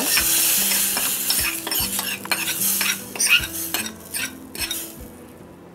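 Hot ghee tempering with mustard seeds and asafoetida sizzling as it is poured from a small pan into a pot of rasam, with scattered clinks of metal against the pot. The sizzle dies away over the last couple of seconds.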